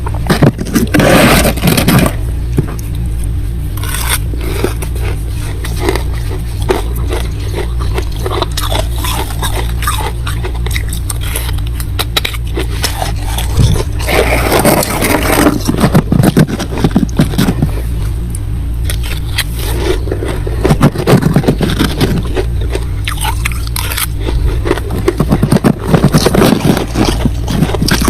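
Thick freezer frost being scraped and broken off in repeated scratchy, crunching strokes, louder in several patches, over a steady low hum.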